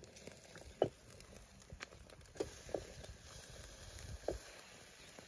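A knife cutting into grilled jerk chicken on a metal tray: a handful of faint, scattered clinks and scrapes, some with a brief ring.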